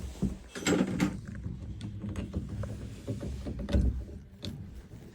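Metal tool clinking and scraping inside a shower valve body while working the cold water seat loose, a series of irregular knocks with the heaviest about four seconds in.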